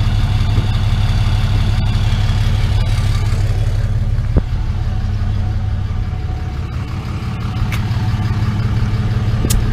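RAM pickup truck's engine idling steadily with a low hum. Near the end there is a short hiss as a pencil tyre gauge is pressed onto a valve stem.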